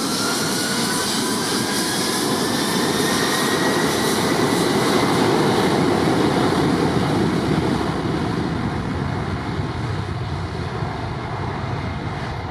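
Airliner's jet engines going by close at hand: a loud rushing noise that swells to a peak about halfway and then slowly fades, with a thin whine rising in pitch over the first few seconds.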